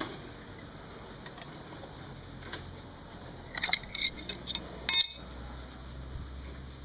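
Small metal tools or parts clinking: a quick run of light clicks, then one sharper clink about five seconds in that rings for a moment.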